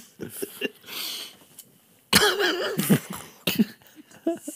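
A man's stifled, breathy laughter, with a loud cough-like burst of laughing about two seconds in.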